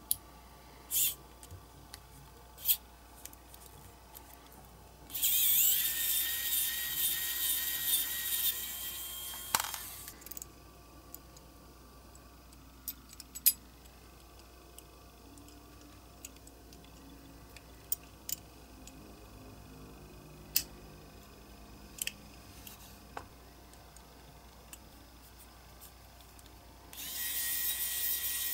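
Pen-sized cordless electric screwdriver running with a steady high whine while driving small screws into a diecast toy tractor: one run of about five seconds, then another starting near the end. Between the runs, light clicks and taps of small metal and plastic parts being handled.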